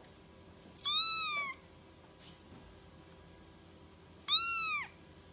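A young kitten meowing twice, three seconds apart: two high, thin mews that each rise and then fall in pitch.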